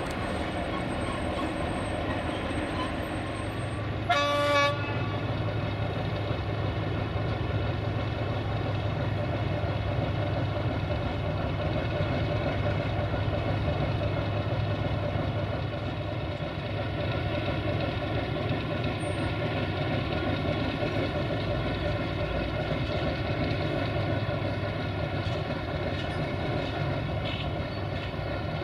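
060-DA1 (LDE2100) diesel-electric locomotive with its Sulzer diesel engine running steadily while shunting, with one short horn blast about four seconds in.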